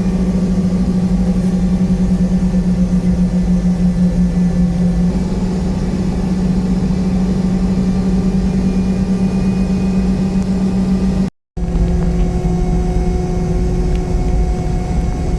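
Steady mechanical drone of a Boeing 717 airliner: a low noise bed with one strong constant hum. It cuts out for a split second about eleven seconds in, then carries on.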